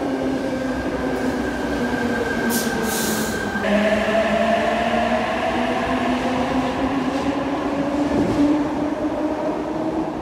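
Passenger train running, with a steady whine over rumble that steps up in pitch about four seconds in and then slowly rises, and a short hiss about two and a half seconds in.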